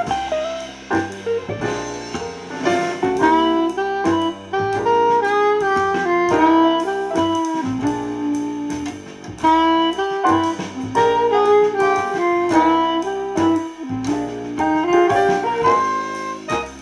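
Instrumental music played through a Samsung Bottle Design (EO-SG710) Bluetooth speaker set to 90% volume, picked up by a microphone, with a melodic lead line over a steady beat.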